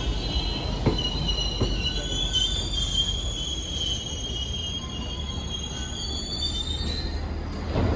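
Subway train's steel wheels squealing against the rails: a high, wavering whine over a rumble, with a few clicks of wheels over rail joints in the first couple of seconds, the squeal dying away near the end.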